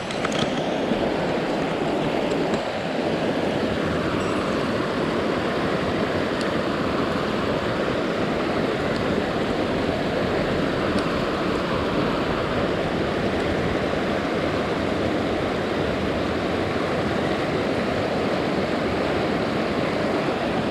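Mountain stream water rushing, a steady even noise with no change.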